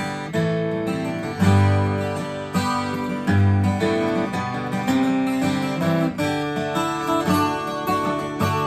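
Twelve-string acoustic guitar playing alone, chords strummed and picked with a strong low bass note every second or two, ringing on as the song's instrumental ending.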